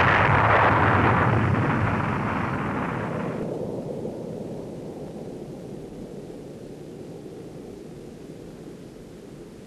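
Rocket blast-off roar after a countdown: a loud rushing roar over a deep rumble. The hissing top drops away about three and a half seconds in, and the rumble fades slowly after that.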